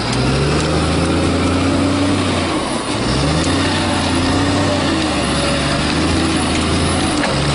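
John Deere 848H skidder's diesel engine running as the machine drives on chained tyres. Its pitch dips and climbs back about three seconds in, and again near the end.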